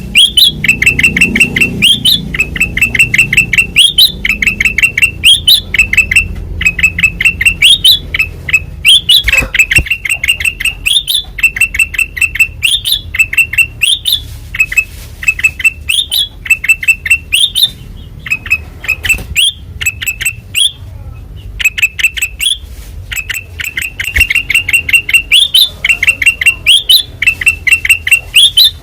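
Kutilang emas bulbul (white-eyed form) singing loudly in full voice: quick runs of identical chattering notes, each ending in a short upward flick, repeated over and over with only brief gaps.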